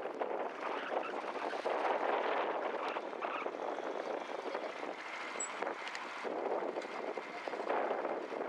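Wind rushing over the microphone by the water, an uneven noise that swells and eases in gusts.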